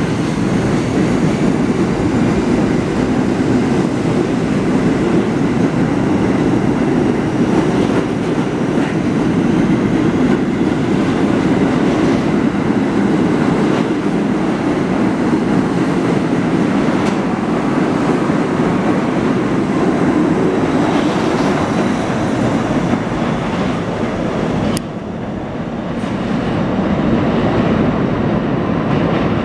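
R68A subway train accelerating out of the station and rolling past: a steady rumble with wheel clatter, and a rising motor whine at first. Near the end the sound drops sharply, then the rumble builds again as the train runs into the tunnel.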